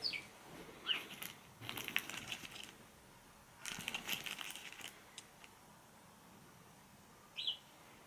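Crinkling plastic rustle in two short spells, from handling a wireless door/window contact and its plastic-wrapped magnet. A few short, high, falling chirps come at the start, about a second in, and near the end.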